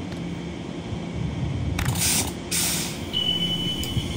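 Elizabeth line Class 345 electric train standing at the platform with a steady hum, giving two loud hisses of released air about two seconds in as it readies to pull away. A thin high steady tone follows for about a second near the end.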